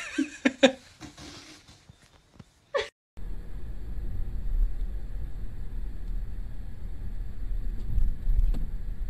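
A few short pitched sounds, then from about three seconds in the steady low rumble of a car driving, heard from inside the car through a dashcam, swelling a little near the end.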